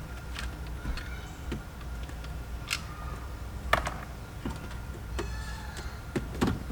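Screws being backed out of plastic interior car trim with a T20 Torx bit: light ticking from the driver, with a handful of separate sharp clicks.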